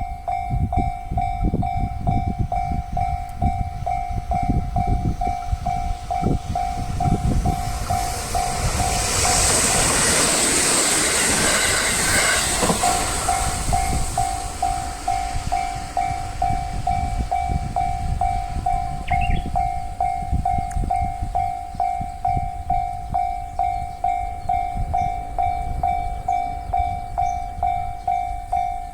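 Railway level-crossing alarm bell ringing in a steady repeated clang while a train runs over the crossing, its wheels knocking at the rail joints. About ten seconds in a loud hiss swells for roughly three seconds and covers the bell.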